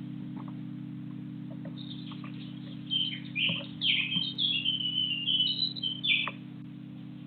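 A songbird singing a quick, varied run of chirps and whistles that starts about two seconds in and stops about a second before the end. A steady low hum runs underneath.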